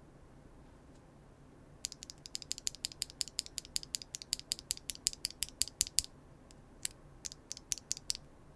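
Typing on a Neo 75 Cu mechanical keyboard with Gateron Sage linear switches, no foam and a carbon fibre plate: a fast run of keystrokes starting about two seconds in, then a handful of slower single key presses near the end.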